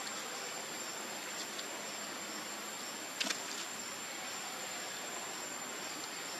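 Steady forest ambience: a constant high-pitched insect drone over an even hiss, with a short crackle about three seconds in.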